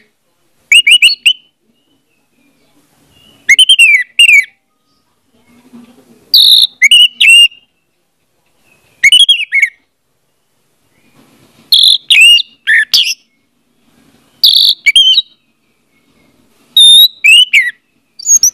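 Orange-headed thrush singing: about eight short, loud phrases of quick whistled notes that fall and arch in pitch, each phrase under a second long with gaps of one to two seconds between.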